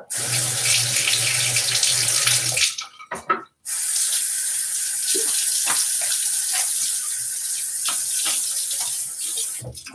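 Bathroom sink tap running with water pouring into the basin between shaving passes. The flow cuts off for about a second three seconds in, then runs again until just before the end.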